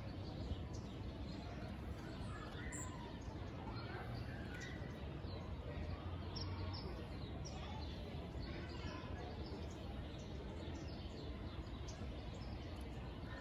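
Steady outdoor background noise with a low rumble, faint bird chirps and a distant murmur of voices.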